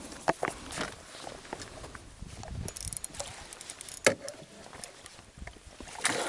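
Scattered clicks and knocks of fishing gear being handled in a small fishing boat, with the sharpest knocks about a third of a second in, about four seconds in and near the end.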